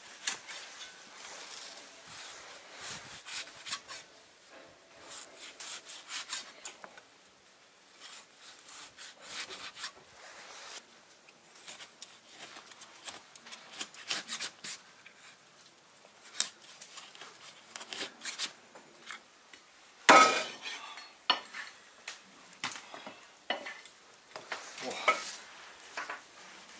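Kitchen prep sounds: irregular knocks and clinks of a knife, cutting board and cookware as raw lamb is handled, with one sharp, louder knock about twenty seconds in.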